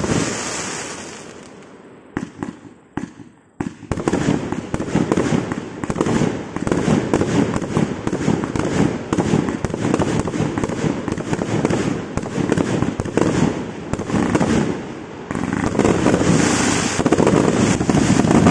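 177-shot consumer firework cake firing: a loud volley that fades into a brief lull with a few scattered shots about two to three and a half seconds in, then a long rapid string of shots, a few a second, building to a dense, loud barrage near the end.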